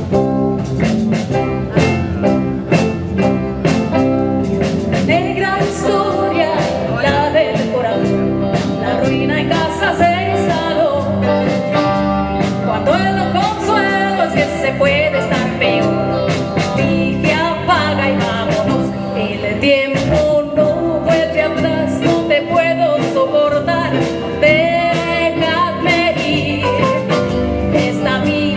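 Live pop-rock band playing: drum kit keeping a steady beat under electric bass, with a woman singing lead into a microphone from a few seconds in.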